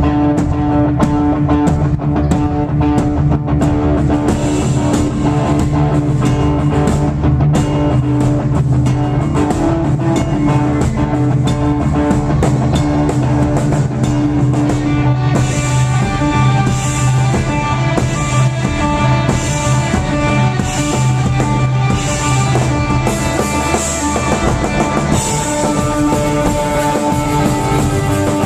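A rock band playing live with drum kit and electric guitar, loud and steady. The arrangement shifts about halfway through and again near the end.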